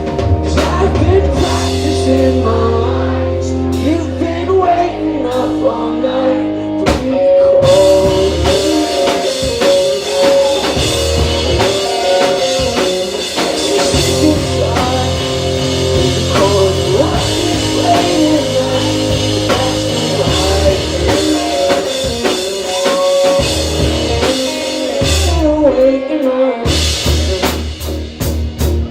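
A live rock band playing loud on drums and guitars with bass. The cymbals come in heavily about seven seconds in and ease off a couple of seconds before the end.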